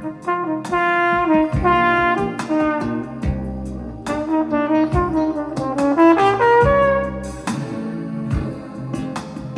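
Band music led by brass horns playing a melody of held notes that step up and down, over a rhythm section with sharp drum hits.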